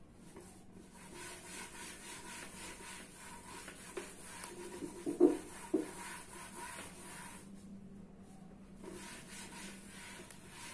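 A hand rubbing marker writing off a board in repeated wiping strokes, in two spells with a short pause about eight seconds in. A couple of brief knocks come a little past the middle.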